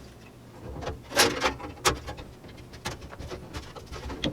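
Thin sheet-metal back panel of a computer case being handled and fitted into its opening: a series of light metallic clicks and scrapes, the loudest a little over a second in and just before two seconds.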